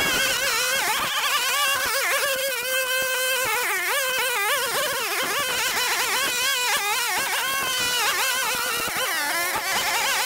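String trimmer running while cutting grass and debris along the edge of paving, its pitch wavering up and down constantly as the line meets the growth.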